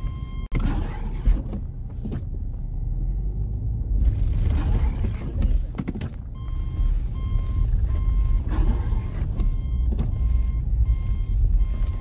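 A stationary car's engine idling as a steady low rumble, while its in-car warning chime sounds once at the start and then beeps repeatedly, about twice a second, from about halfway through.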